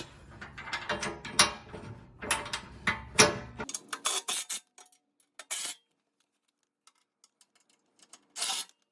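A run of light metallic clicks and taps as bolts are handled and started by hand in the holes of a steel skid plate, stopping about four seconds in, followed by a brief scrape near the end.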